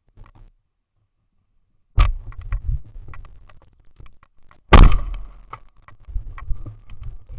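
A single loud shotgun shot about five seconds in, with a short ringing tail. A heavier knock comes about two seconds in, with scattered clicks and rustling of movement around the shot.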